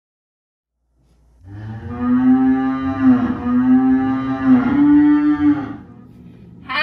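Two people imitating cows, mooing together in three long, drawn-out moos starting about a second and a half in, the last one a little higher.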